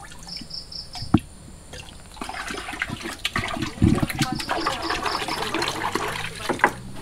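Water pouring and splashing into a tub, starting about two seconds in and stopping just before the end.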